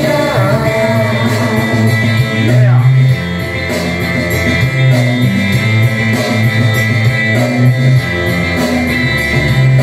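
Karaoke backing music with a steady bass line and guitar. A woman's voice sings through the microphone at the start, then the instrumental carries on without vocals.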